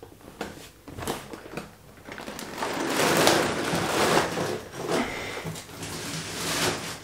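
A large cardboard box handled on a table: a few light knocks in the first two seconds, then scraping and rubbing as the box is turned over and slid across the tabletop.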